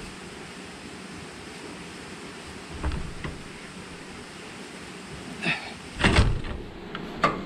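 Several sharp knocks and clunks over a steady rushing background, the loudest a cluster of them about six seconds in, with another just after seven seconds.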